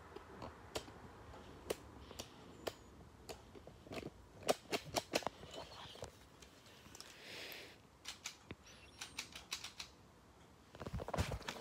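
Plastic clicks and rattles of a LEGO brick gun being handled and its mechanism worked by hand: scattered sharp clicks, a quicker run of them about four to five seconds in, and a louder scuffle of handling near the end.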